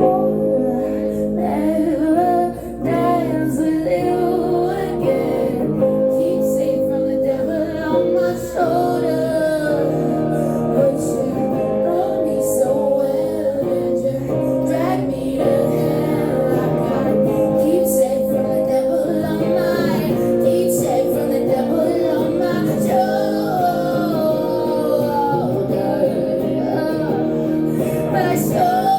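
Live band music with a woman singing, recorded from the audience in a venue.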